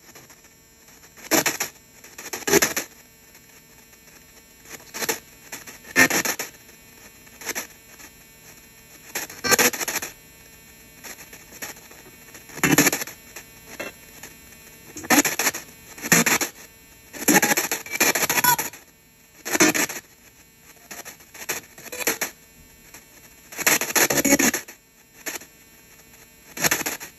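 P-SB7T Spirit Box ghost box sweeping FM stations, heard through a small speaker behind a DAS-ANC noise gate: irregular short bursts of radio sound every second or two, with quieter gaps between where the gate cuts off the static.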